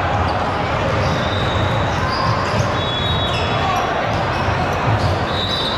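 Busy volleyball gym din: a steady babble of players and spectators across several courts, with balls thudding on the hardwood floor. A few short high squeaks come through, about two, three and five and a half seconds in.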